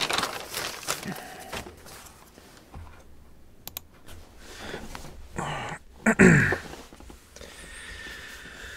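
Papers rustling for about a second, then a few small clicks and knocks in a quiet small room. About six seconds in comes a short, loud vocal sound from a person, falling in pitch, like a grunt or groan.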